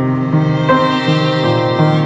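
Background music of slow, held notes, several pitches sounding together, with the notes changing every fraction of a second.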